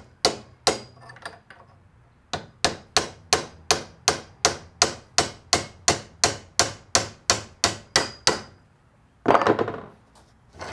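Small hammer tapping a steel chisel against the shift-linkage coupling on a Corvair shift tube to work it loose: two blows, a short pause, then a steady run of about three light metallic taps a second. A brief, louder clatter follows about nine seconds in.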